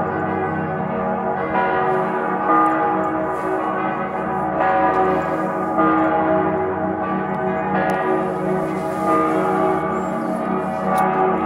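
Salzburg Cathedral's bells ringing in full peal: several large swinging bells strike over one another, a new stroke about every second, in a continuous wash of overlapping tones.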